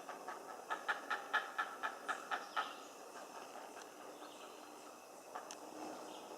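Great blue herons calling from nests high in the treetops: a rapid run of harsh squawks, about five a second, in the first three seconds, then fainter calling.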